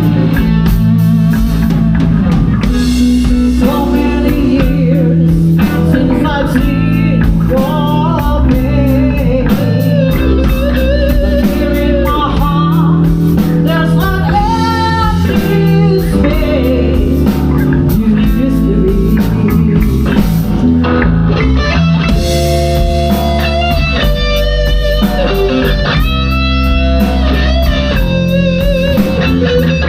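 Live band playing a slow blues-rock ballad: lead guitar playing long notes that bend in pitch, over bass and drums.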